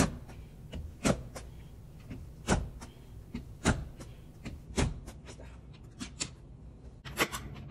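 Pneumatic carpet staple gun firing staples through carpet into a wooden stair: about five sharp shots roughly a second apart, then a quicker run near the end.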